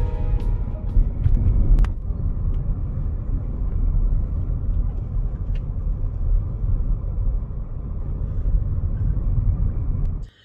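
Car driving, heard from inside the cabin: a steady low rumble of engine and tyres on the road, with a few light clicks in the first few seconds. It cuts off abruptly just before the end.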